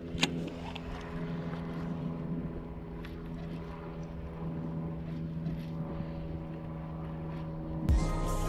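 Steady motor hum held at one pitch, with a single sharp click just after the start.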